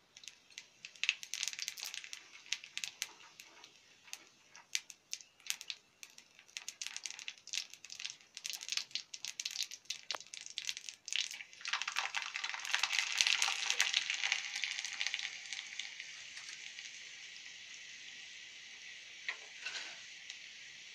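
Cumin seeds crackling and popping in hot oil in an iron karahi, sharp irregular pops. About twelve seconds in, a wet paste goes into the oil and a dense sizzle rises, then settles to a steady sizzle.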